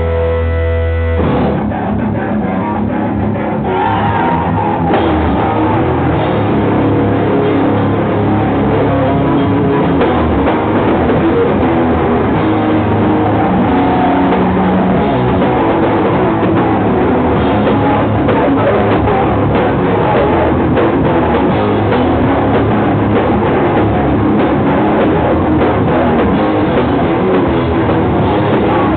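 A live rock band with drum kit and electric guitars playing loudly. A held chord rings for about a second, then the drums and guitars come in together and keep playing.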